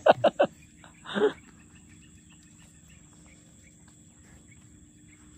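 A rapid run of loud, sharply falling animal calls, several a second, that stops about half a second in, followed by one short rough sound about a second in. After that, a steady high drone of insects over the quiet background.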